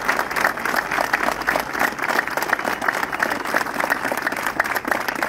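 A large crowd applauding: many hands clapping steadily in a dense, continuous patter.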